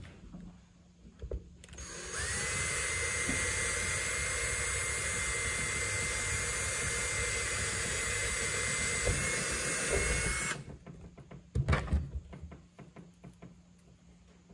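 Ryobi cordless drill spinning up and running steadily for about eight seconds with a high whine, boring a small screw hole through the plastic wall of a hard case, then stopping. A few short knocks follow.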